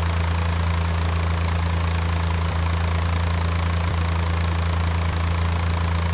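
An engine or motor running steadily at idle: a low, even hum with a hiss over it.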